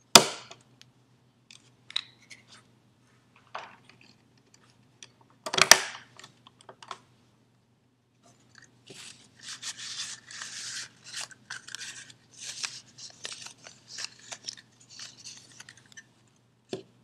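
Handling noises: a sharp knock at the start and another about five and a half seconds in, then a run of scratchy, crackly rustling and scraping through the second half.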